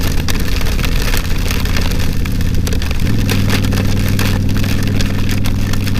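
Yamaha V-Star 1100 Classic's V-twin engine running at road speed, its note dipping briefly about three seconds in and then holding steady. Big raindrops spatter against the helmet and camera throughout.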